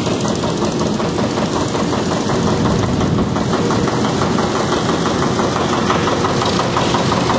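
Tractor engine running steadily at idle, with a rapid, even pulse of firing strokes.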